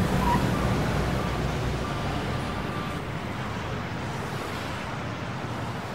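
Sound effect of a car driving by: engine and road noise that swells right at the start, then fades away slowly, with faint background music in the first few seconds.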